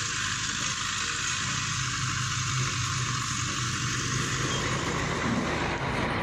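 A heavy vehicle's engine running steadily under a loud, even hiss.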